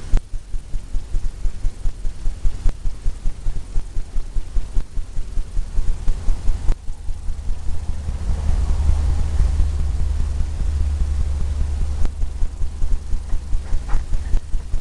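Paintbrush tapping and stroking on a stretched canvas, about three soft thumps a second, turning into steadier scrubbing in the middle.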